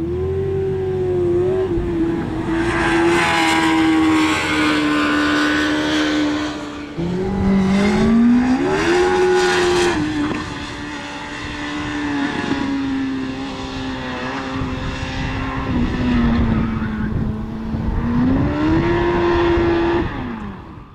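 Open-wheel autocross race car's engine at high revs as the car is driven hard through a cone course. The pitch climbs under acceleration, holds, and drops back in steps. It dips and climbs sharply again about seven seconds in and once more near the end, then cuts off.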